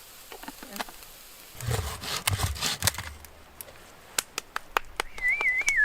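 Scattered clicks, knocks and light scraping of things being handled, busier for about a second in the middle. Near the end a short whistle wavers briefly and then slides down in pitch.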